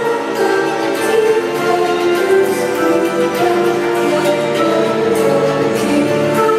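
Orchestral music with strings, played loud over a stadium's sound system.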